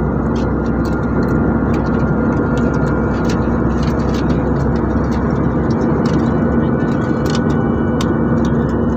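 Jet airliner cabin noise in cruise flight: a loud, steady roar of engines and airflow with a constant low hum.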